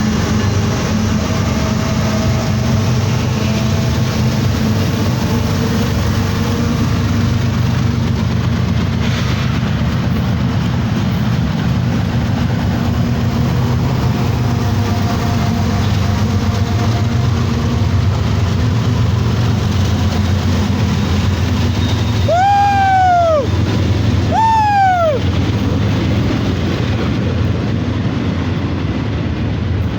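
Freight train passing: the steady low drone of GE diesel-electric locomotives under the rolling noise of wheels on rail. About 22 and 24 seconds in, two short tones rise and fall in pitch.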